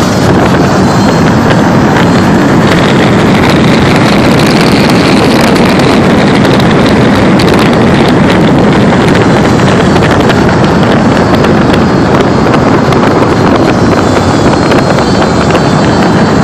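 Heavy wind rushing over the microphone, mixed with a vehicle running at speed along a twisting road. The sound is loud and steady throughout, with no clear engine note standing out from the wind.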